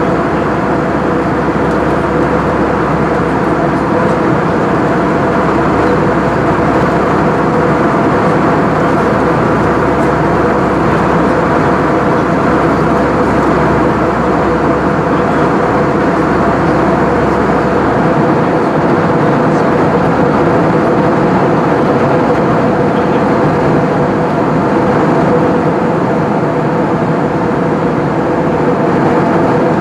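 Airbus A320 cabin noise in flight: a steady engine drone with a constant hum. A deep low rumble drops away about two-thirds of the way through.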